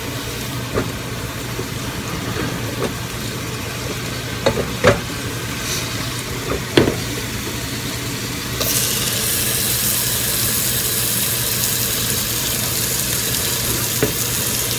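Knife clicks and taps on a plastic cutting board as diced tomatoes are gathered and scraped into the pot, over the steady sizzle of food frying in the pot. A louder, steady hiss comes in about two-thirds of the way through.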